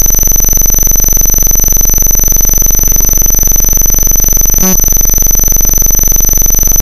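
Loud, steady distorted electronic noise with a constant high whine, broken by a brief glitch about four and a half seconds in.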